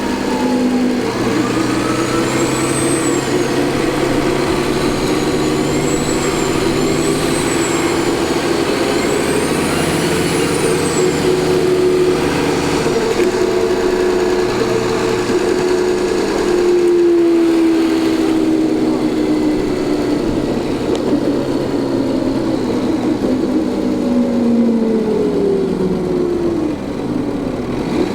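Cummins ISL turbodiesel of a 2004 New Flyer D40LF transit bus running under way, its turbocharger whining in high rising-and-falling sweeps several times in the first ten seconds or so. The engine note slides down twice in the second half.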